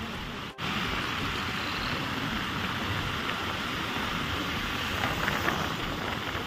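Steady rush of wind on the microphone and road and engine noise from riding a motorcycle in a pack of motorcycles and scooters. The sound cuts out for an instant about half a second in.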